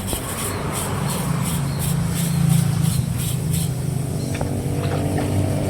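Motor vehicle engine running with a steady low rumble. For the first three and a half seconds there is also a rapid high-pitched pulsing, about three a second.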